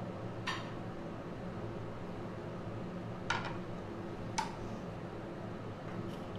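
Three short, sharp clicks, each about a second or more apart, over a steady low hum.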